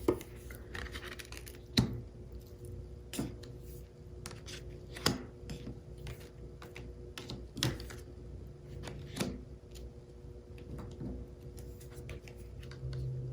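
Tarot cards being handled and turned over: sharp taps and snaps of card on card and table every one to three seconds, over a faint steady hum.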